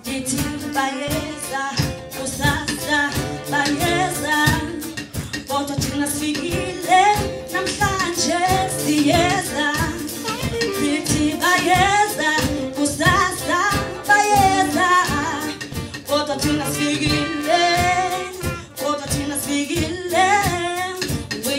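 A woman singing a melody into a microphone with a live band: a drum kit keeping a steady beat under electric guitars and saxophone.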